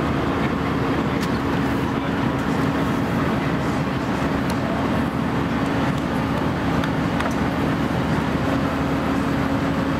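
Airbus A319 cabin noise in flight: a steady rumble of engine and airflow with a constant low hum.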